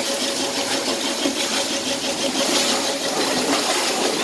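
A 5 hp single-plunger pressure washer running steadily, its pump drone under the steady hiss of the water jet spraying from the gun.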